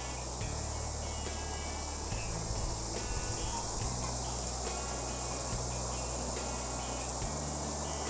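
Waterfall with water falling in a steady, even rush.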